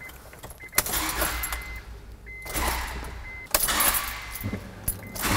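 Starter motor briefly cranking the Acura Integra GS-R's engine in three short bumps of the ignition key, each about a second long, to turn the distributor rotor into position.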